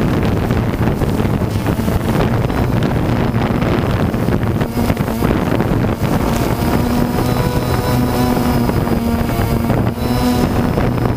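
Quadcopter drone's motors and propellers buzzing steadily, with wind noise on the microphone.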